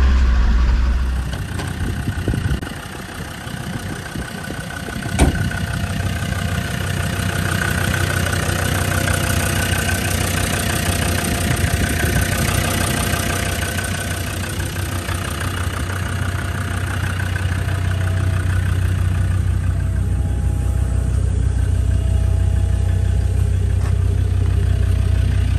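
Land Rover TD5 five-cylinder turbodiesel running steadily in a 1955 Series 1. There is a single sharp knock about five seconds in.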